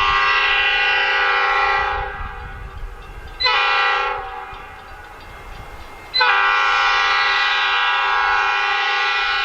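EMD GP38 diesel locomotive's multi-chime air horn sounding a crossing signal. A long blast ends about two seconds in, a short blast follows a second and a half later, and another long blast starts about six seconds in. Between blasts, only the low rumble of the approaching train is heard.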